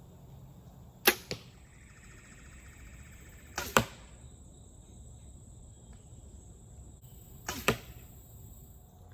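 Compound bow shot three times. Each shot is a sharp snap of the string, followed about a fifth of a second later by the thud of the arrow striking the target.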